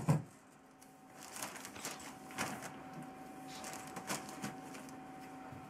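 Tape being pulled off the roll with a short rip right at the start, then scattered rustling and crinkling as the tape is pressed down along plastic containment sheeting at the floor. A faint steady hum sits underneath.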